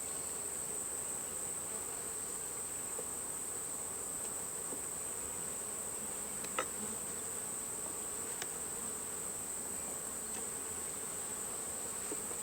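Honeybees buzzing steadily around an open hive while its frames are lifted out and inspected, with a couple of faint clicks partway through.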